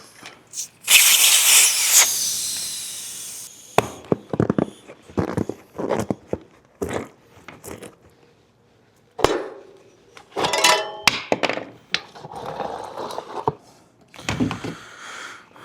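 A bicycle tire being worked off its rim by hand: rubbing, knocks and clicks of rubber against the rim. A loud rushing noise about a second in lasts for a couple of seconds, and there is a short squeak about ten seconds in.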